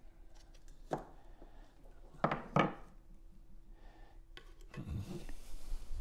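Metal paint tin lid being prised open with a flat-bladed tool: a few sharp metallic clicks and knocks, the loudest pair about two and a half seconds in as the lid comes free, then a low thud about five seconds in.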